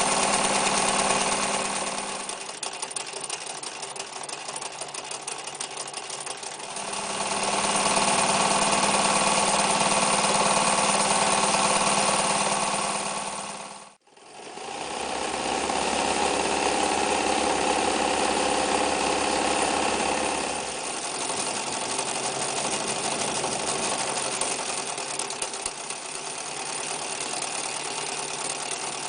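Necchi Lycia electric sewing machine running steadily, its motor and needle mechanism speeding up and slowing down a few times. About halfway through the sound drops away to almost nothing for a moment, then the machine runs on.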